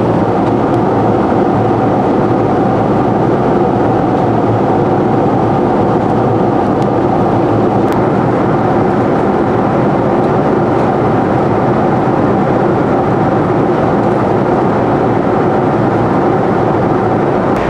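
Steady cabin noise of a Boeing 747 in the climb: jet engines at climb power and rushing airflow heard through the fuselage, an even, unbroken rumble and hiss.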